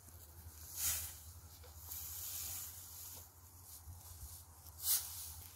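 Dry hay rustling and crackling as it is forked and tossed onto a tractor trailer, with two louder swishes, about a second in and near the end.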